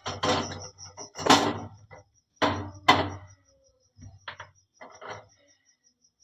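A handful of knocks and clatters from handling guavas on a gas stove burner while roasting them, the loudest about a second and about three seconds in. A cricket chirps steadily behind.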